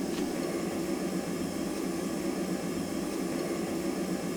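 A blacksmith's forge running steadily: a constant, even noise with no hammer blows.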